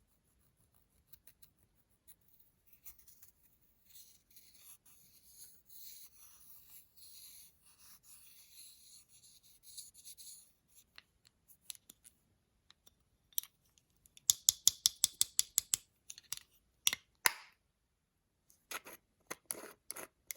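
Slime being worked by hand with makeup mixed in: soft scraping and rubbing for several seconds, then a quick run of sharp clicks and pops, about six a second, with a few more single clicks near the end.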